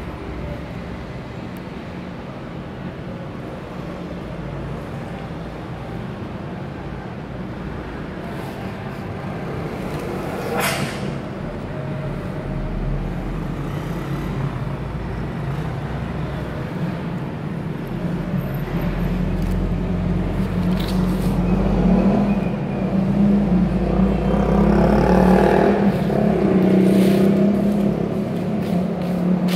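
Steady low rumble and hum of a running motor, growing louder about two-thirds of the way through, with a single click near the middle.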